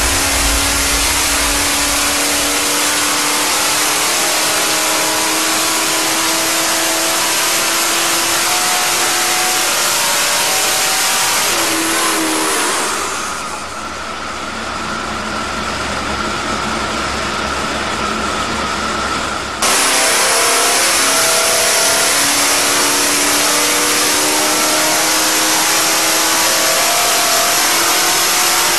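Turbocharged Banks diesel dragster engine running on an engine dyno, loud and steady, its pitch climbing slowly over the first dozen seconds. About halfway through the sound turns muffled for several seconds, then snaps back to full loudness.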